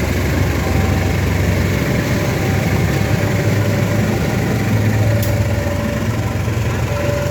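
An engine running steadily with a deep, even drone. A short click comes about five seconds in.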